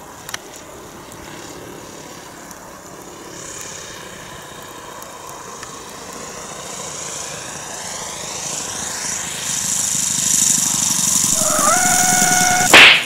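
Single-cylinder Saito FG30 four-stroke gas engine of a large RC model plane, growing steadily louder as the plane comes in low and lands. A sudden, very loud crack comes just before the end.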